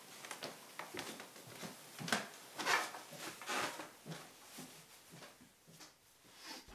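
Irregular knocks, clicks and rustling handling sounds in a small room, busiest about two to four seconds in.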